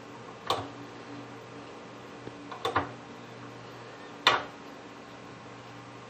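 Four sharp clicks at irregular intervals, one a quick double, over a steady low hum.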